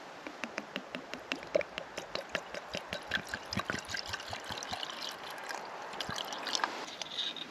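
Water poured from a bottle into a small metal pot, trickling and splashing with many small irregular splashes.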